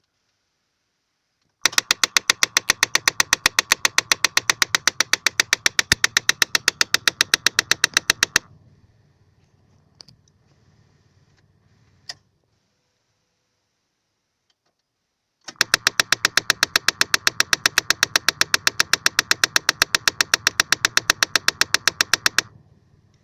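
Rapid, even ticking from a mechanism behind the glovebox of a 2008 Mazda 2 with the ignition switched on, about eight or nine clicks a second. It comes in two runs of about seven seconds each, with a couple of single clicks between them. The owner believes it is a heating/ventilation fault, from a small white part that moves slightly as it ticks.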